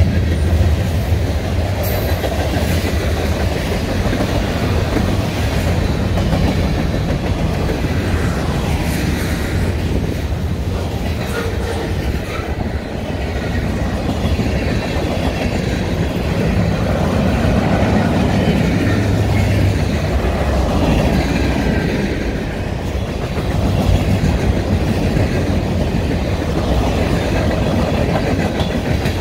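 Freight cars of a long mixed freight train rolling past: a steady rumble and clatter of steel wheels on the rails.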